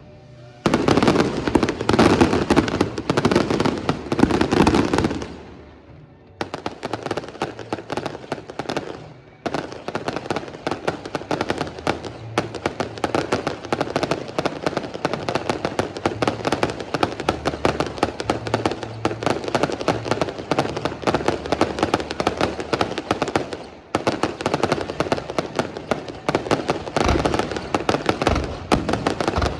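Fireworks display: heavy shell bursts for the first few seconds, then, after a brief lull, a dense and continuous rapid crackling of many small bursts.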